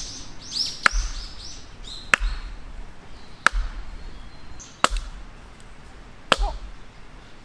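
Axe with a log wedged on its blade being struck down onto a wooden chopping block to split the log, five sharp chopping knocks each with a dull thud, about one every second and a half.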